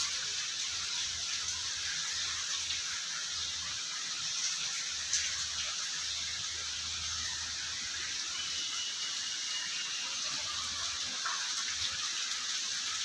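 Steady rush of rainwater pouring and splashing, heard as an even hiss with a few faint clicks.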